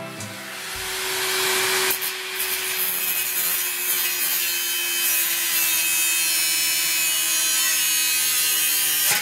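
Angle grinder with a cut-off disc cutting through rectangular steel tube: a steady motor whine over a harsh grinding hiss, building up over the first second or two and then holding steady.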